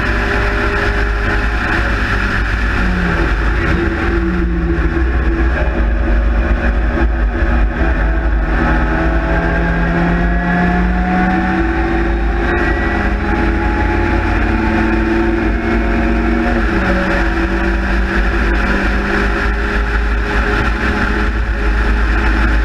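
A Sprite/Midget race car's four-cylinder engine driven hard on track, its pitch climbing and then dropping sharply several times as the gears change. Wind rumbles steadily on the onboard camera's microphone in the open cockpit.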